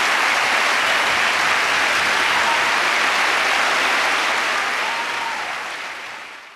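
A large audience applauding steadily after a poetry reading, fading out over the last two seconds or so.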